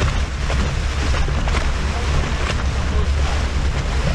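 Wind buffeting the microphone on a moving boat, over the low, steady drone of the boat's motor and water rushing and splashing along the hull.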